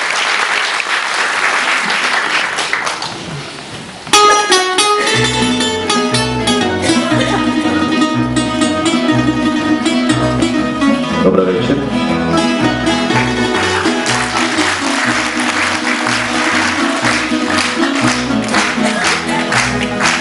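Applause dying away, then about four seconds in a tamburica band strikes up an instrumental introduction: a melody on the small tamburicas over strummed chords and a plucked berde (double bass) keeping a steady beat.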